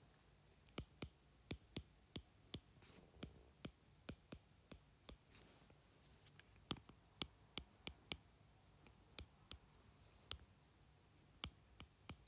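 Faint, irregular taps and clicks of a stylus tip on a tablet's glass screen during handwriting, two or three a second.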